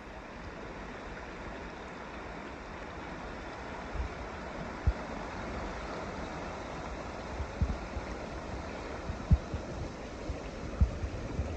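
Steady rush of whitewater running over rocks in a Class II river rapid, with a few brief low thumps.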